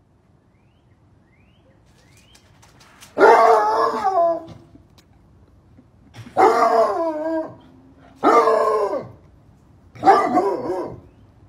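Basset hound baying: four long, wavering howls, each about a second long, a second or two apart.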